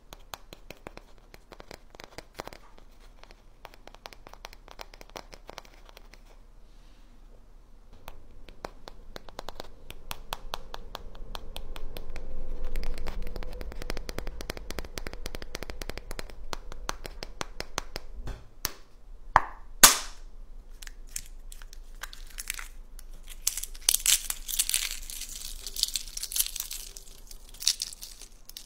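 Fingers tap and scratch at an eggshell in a run of small rapid clicks. About two-thirds of the way through comes one sharp crack. Then a spell of crunching and crackling as the eggshell is broken apart and crushed around the water beads packed inside.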